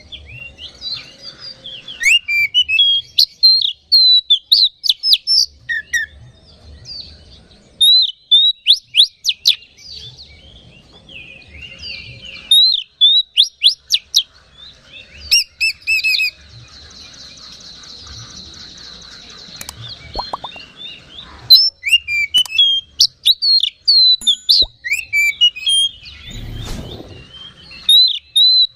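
Oriental magpie-robin singing loudly: rapid runs of sharp, varied whistles and chirps, with a long harsh buzzy phrase in the middle. This is the vigorous song that kacer keepers call gacor.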